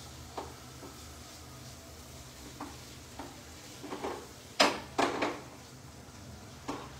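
Paneer frying in butter on high heat, sizzling faintly as a spatula stirs it in a non-stick frying pan. The spatula knocks against the pan about eight times, the loudest two clacks coming close together about halfway through.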